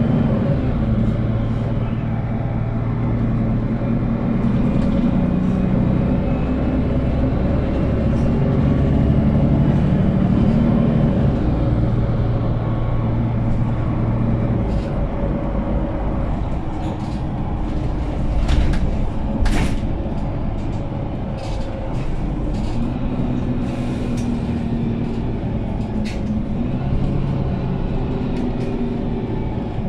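Inside a Mercedes-Benz Capacity O530GL articulated city bus on the move: a steady low diesel-engine drone that changes pitch several times and eases off in the second half, over road rumble. Short rattles and clicks from the interior, with one sharp knock about twenty seconds in.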